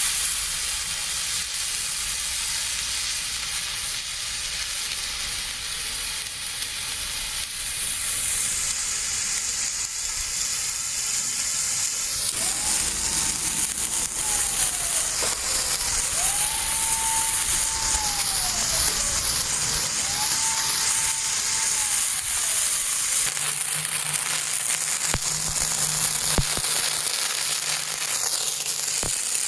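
Firework burning and spraying sparks with a continuous hissing sizzle. Midway there are three faint gliding tones, each rising then falling.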